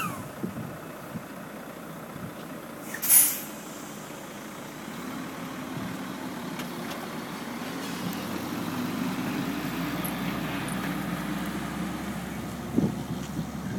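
A heavy truck's air system gives one short, loud hiss about three seconds in, like an air brake letting off, followed by a steady low drone that slowly grows louder.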